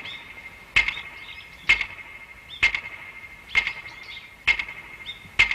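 Clockwork timer of a time-bomb firework ticking, with one sharp metallic tick a little under once a second and a short ring after each. It is counting down to the moment its hand lines up and sets off the explosion.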